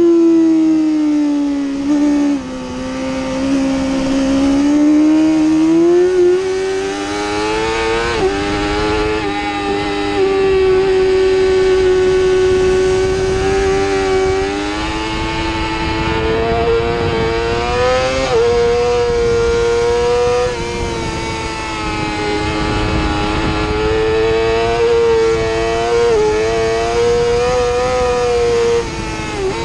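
Yamaha YZF-R6's 600 cc inline-four engine at high revs on a race lap, heard close from onboard with wind rush. Its pitch falls in the first couple of seconds, then climbs and swings with the throttle through the corners, with sudden steps in pitch a few times as gears change.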